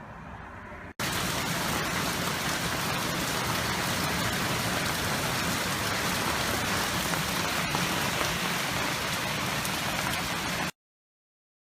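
Heavy rain pouring down, a dense steady hiss that cuts in suddenly about a second in and stops abruptly near the end.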